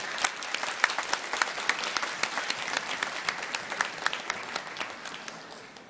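Audience applauding: many hands clapping fast and irregularly, dying down near the end.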